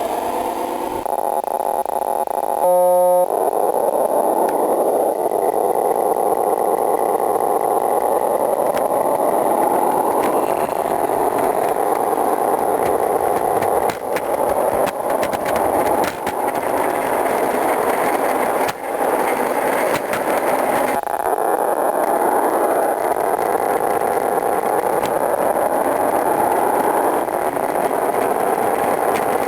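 Simulated diesel railcar engine sound generated by a Picaxe 08M2 microcontroller on a radio-controlled garden-railway railcar. The engine pitch rises in repeated sweeps as it steps through its gear changes. A short, loud steady tone sounds about three seconds in.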